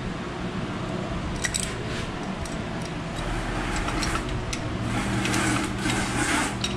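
Hand tools working on an engine: a few scattered metal clicks from wrenches on bolts over a steady low hum, with a swell of rustling and scraping in the last couple of seconds.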